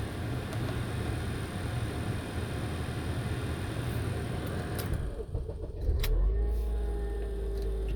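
2008 Honda Accord 2.4-litre four-cylinder engine running shortly after a start, under a steady rushing noise that cuts off about five seconds in. A click follows, then a deep low rumble with a steady whine.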